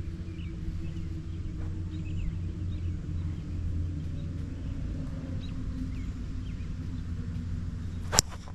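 A single sharp crack of a golf club striking the ball on a full fairway swing, about eight seconds in, over a steady low rumble.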